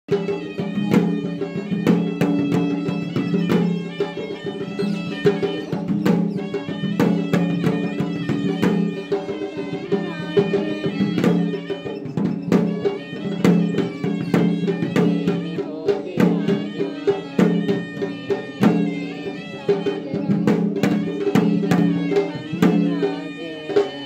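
Sri Lankan hewisi temple music: drums beaten in a busy rhythm while a reed pipe plays a steady, droning melody over them.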